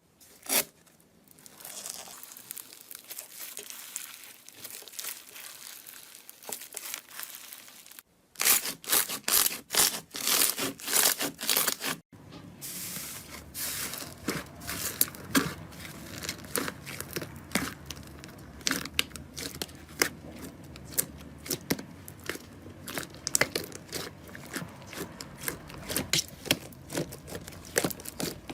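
Slime being squeezed, stretched and poked, giving dense crackling, clicking and popping sounds. The texture changes abruptly twice, about 8 and 12 seconds in, with sharper, louder pops in the middle stretch.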